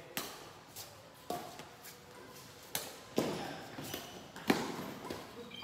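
Badminton rackets striking a shuttlecock in a rally: sharp, cracking hits about once a second, the loudest near the end, with shoe steps on the court.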